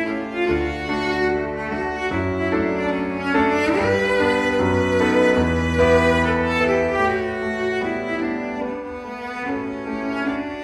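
Background music: bowed strings, violin and cello, playing sustained notes over a low line, with a rising slide about four seconds in.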